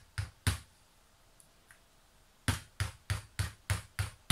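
Tongue-and-groove pliers tapping lightly on a laptop's casing right at its USB port, to improve the port's poor contact so the connected hard drive is recognised. Two sharp taps, then after a pause of about two seconds a run of six at about three a second.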